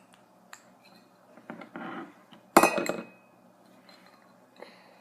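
Clicks and clinks of air horn parts being handled and pried apart, with a louder clatter about two and a half seconds in that rings briefly.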